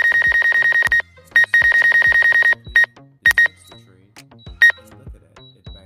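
DJI flight app's obstacle warning beeping as the Mavic 2 Zoom's sensors pick up trees about 18 ft ahead during auto return to home. It is a rapid, high-pitched beeping in two bursts of about a second each, followed by a few short beeps over the next couple of seconds.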